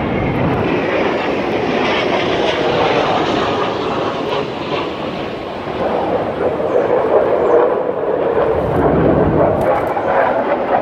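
Jet engines of fighter aircraft passing overhead: a loud, steady roar that eases a little about halfway through and swells again toward the end.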